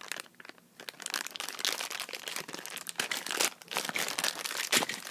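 A bag of Beyblade accessories being opened and its contents handled, making dense, rapid crinkling and crackling. There is a sharp click near the end.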